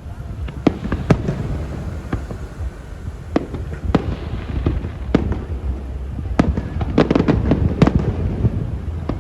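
Aerial fireworks going off: a string of sharp bangs from bursting shells, with a dense run of cracks and bangs about three-quarters of the way through, over a steady low rumble.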